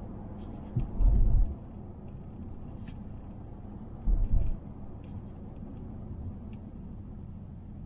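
Steady low rumble inside the cabin of a moving 2020 Mazda Atenza (Mazda6) 2.5L, with heavy low thumps about a second in and again about four seconds in, and faint scattered light ticks.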